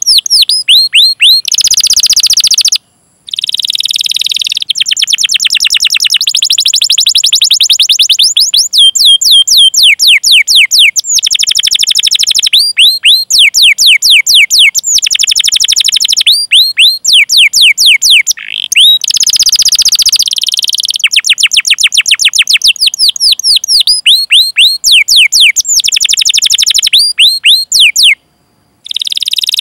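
Canary singing a long song: fast runs of high, downward-sweeping 'cuit cuit' chirps, several a second, broken up by buzzy rolled trills. The song stops briefly about three seconds in and again near the end.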